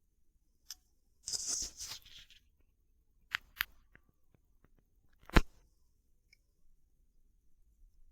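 Handling noises from a moderated .177 PCP air rifle: a brief rustle, then two sharp clicks and a few lighter ticks. About five seconds in comes a single sharp shot, the loudest sound.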